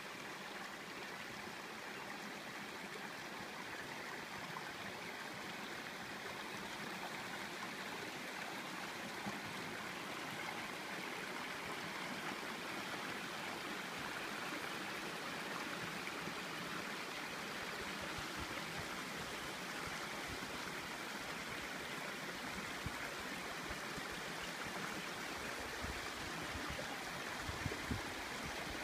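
Shallow rocky mountain creek running over stones: a steady rush of water that swells slightly, with a few low bumps near the end.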